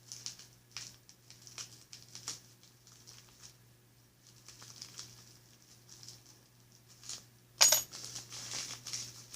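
Packaging being handled: scattered light clicks and soft rustles, then one sharp metallic clink with a brief ring about three-quarters of the way through.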